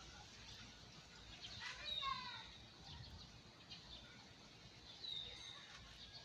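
Birds calling: a quick run of falling chirps about two seconds in and another high call near the end, over faint outdoor background noise.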